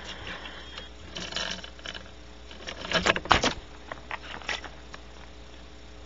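Irregular scratching, rustling and clicking in a few clusters, loudest about three seconds in, over a steady electrical hum.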